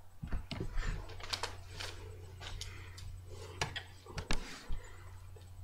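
Handling noise as a camera is picked up and turned: scattered clicks, knocks and rustles over a steady low hum.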